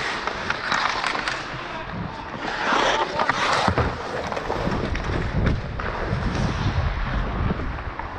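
Ice skate blades scraping and carving the ice during play, loudest in a long scrape about three seconds in, with a few sharp clacks. A low rumble of wind on the microphone runs through the second half.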